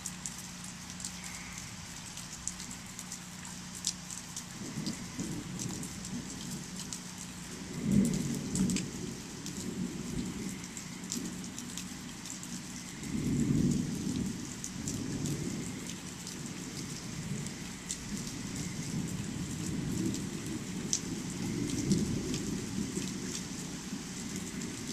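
Steady rain with fine pattering drops, and rolling thunder rumbling low from about four seconds in. The thunder swells twice, about a third of the way through and again near the middle, then keeps rolling.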